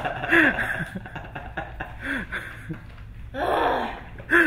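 A person's voice in short fragments: a few brief voice sounds, then a loud breathy exhale about three and a half seconds in, and a word starting right at the end.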